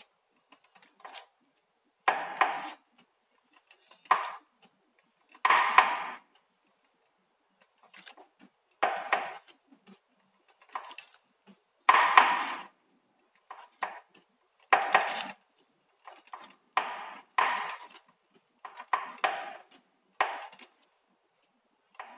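Honda MSX125 (Grom) front sprocket area making a series of irregular clunks, one every second or two, each sharp at the start and dying away within about half a second. It happens only when the drivetrain turns in the direction of travel, and the owner cannot tell which part is at fault and hopes it is not the gearbox.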